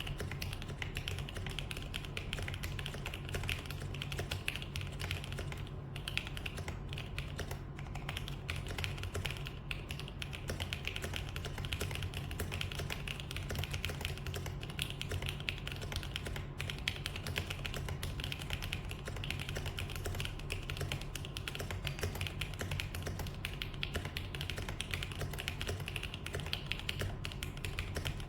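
Fast, continuous typing on a mechanical keyboard fitted with Gundam-themed keycaps: a dense run of key clacks with no pauses.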